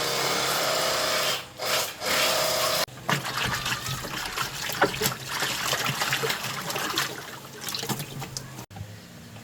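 Water running hard for about three seconds with a steady hiss, briefly interrupted, then splashing and trickling unevenly with small clicks until it cuts off abruptly near the end.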